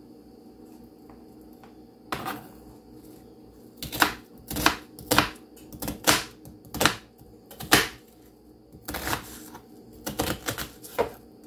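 Kitchen knife dicing a red onion on a plastic cutting board: a series of sharp taps as the blade cuts through and strikes the board, about two a second with short pauses, starting about two seconds in.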